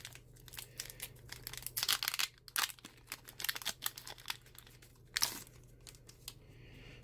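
Pokémon trading-card booster pack packaging being torn open and crinkled by hand, a run of quick crackles and rips with one louder rip about five seconds in, then only a few faint crackles.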